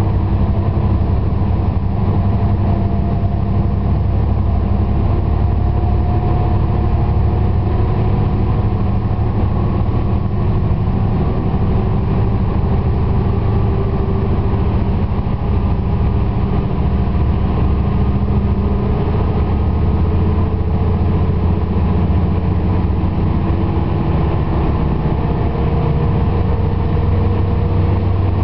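ALn 668 diesel railcar's engine running steadily at low revs, heard from inside the car as the train pulls away at low speed; the car's own driver has not opened the throttle, so its engine idles in gear while the leading railcars pull the train.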